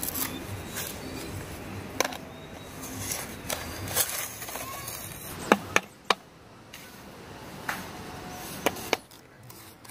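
About half a dozen sharp clicks and knocks at uneven intervals, three in quick succession near the middle, over a steady background hiss.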